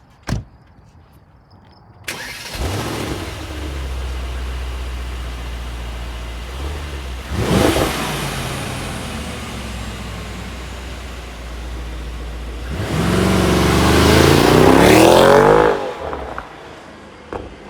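Mercedes-AMG GT 63 4-door's 4.0-litre twin-turbo V8 and exhaust starting about two seconds in with a brief flare, then idling. The engine is blipped once, then given a longer rev that rises and drops back to idle. There is a sharp click just before the start and another near the end.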